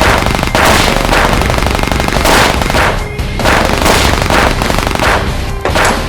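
Dubbed automatic-gunfire sound effects, with fast strings of shots and repeated loud blasts, over background music.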